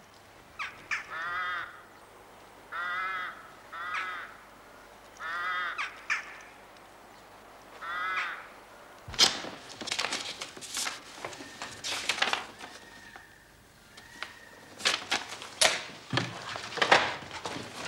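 A crow cawing, about five harsh caws spread over the first eight seconds. From about nine seconds in, a run of sharp clicks and knocks follows.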